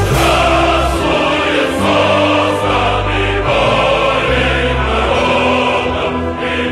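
Choral music: voices sung together in long held notes over a deep bass line.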